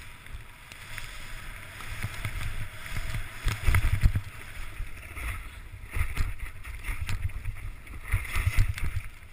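Wind buffeting the microphone of a camera worn by a rider descending through deep powder snow, over a steady hiss of sliding through the snow. The buffeting comes in gusts and is loudest about four seconds in and again near the end.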